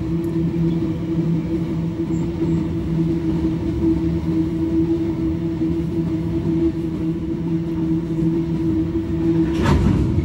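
GE AC44i diesel-electric freight locomotives running, a steady engine drone with a held hum under a rumble. A short, sharp clank rises above it near the end.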